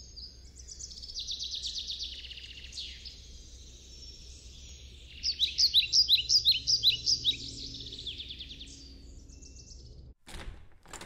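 Songbirds singing outdoors: fast trills and repeated chirping notes, loudest a little past halfway, over a faint steady low rumble, then a couple of short sharp noises near the end.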